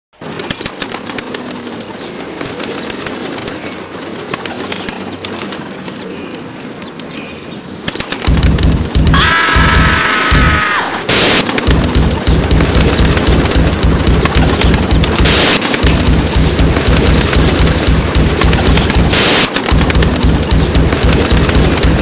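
Cartoon pigeon-cooing sound effects, loud and repeated over and over, starting after a quieter stretch of steady hiss. A pitched squawk comes about nine seconds in, and short harsh bursts of noise break in every few seconds.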